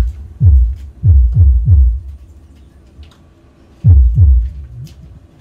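Kick-drum hits played through turbo-style subwoofer cabinets as a phase check of the subs. Each is a short, loud, deep thump that drops in pitch. Five come in quick succession about half a second apart, then after a pause two more near the end.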